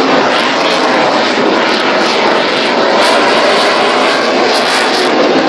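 Aircraft engine noise, a loud, steady rush that holds unchanged throughout.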